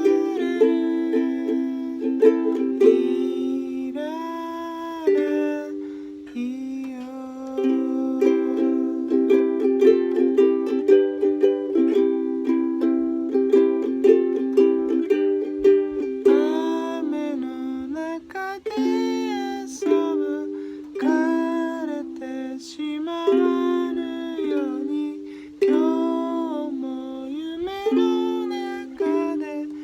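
Ukulele playing plucked chords, with a voice singing over it from about halfway through.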